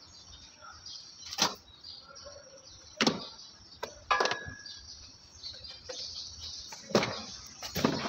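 A handful of sharp knocks and clunks as a portable electric pressure washer in a metal frame is handled, tilted and set back down on a concrete floor.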